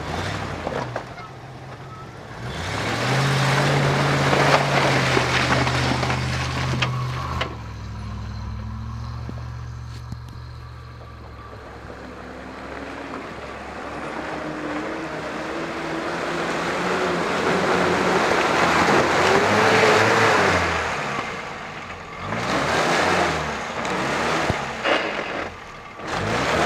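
Land Rover off-road engines (a Range Rover Classic, then a Series Land Rover) revving and labouring as they drive through deep mud. A loud stretch of engine comes a few seconds in. Later the revs climb steadily for several seconds as the next truck pushes through, followed by another short burst of throttle near the end.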